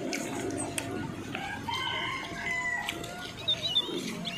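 A rooster crowing: one long drawn-out call starting about a second in.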